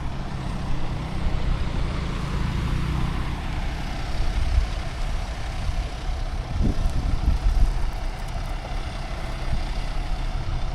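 Low, steady engine rumble of a large vehicle, with a humming note for the first few seconds.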